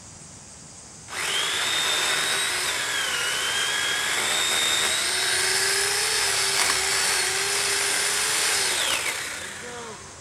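Chainsaw cutting into a standing tree trunk, a felling cut. It starts about a second in, runs steadily at high speed with its pitch dipping a little under load, then falls away around nine seconds in.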